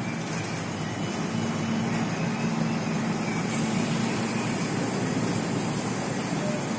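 Flatbed tow truck's engine idling, a steady even hum, with a faint high hiss joining about halfway through.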